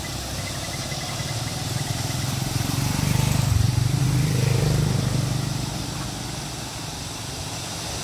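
A small motorcycle engine running on the path, growing louder about three seconds in and fading again after about five seconds as it passes. Underneath is the steady rush of a shallow river running over rocks.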